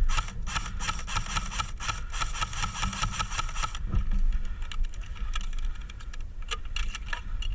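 Airsoft electric AK replica firing a long full-auto burst: rapid clicking with a steady motor whine for nearly four seconds, stopping abruptly. A few scattered clicks follow near the end, over low wind rumble on the microphone.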